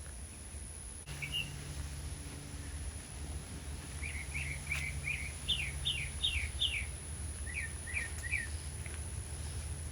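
A bird chirping: a quick series of short, falling notes, in a run of about nine and then three more, over a low steady hum.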